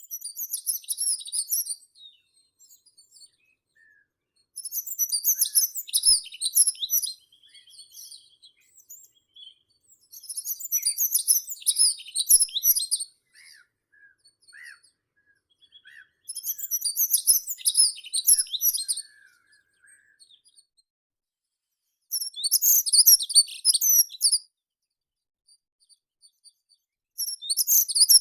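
A meadow songbird singing short phrases of rapid, high notes, each two to three seconds long and repeated about every five to six seconds. Fainter, lower single notes from another bird come in the pauses between.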